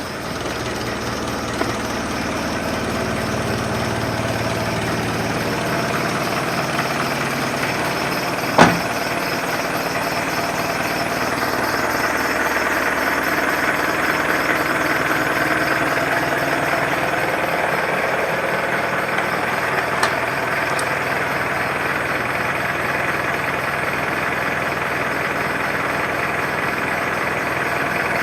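Mitsubishi L200 pickup's diesel engine idling steadily through its stock exhaust. A single sharp knock stands out about a third of the way in.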